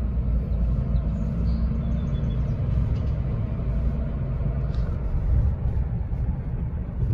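Steady low rumble of engine and road noise heard inside the cabin of a moving vehicle.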